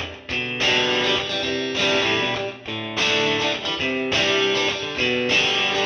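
Background music: guitar chords played in short repeated phrases.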